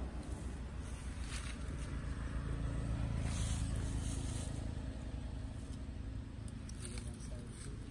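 Steady low background rumble with a few short rustles, about a second and a half in, around three to four seconds in, and near the end.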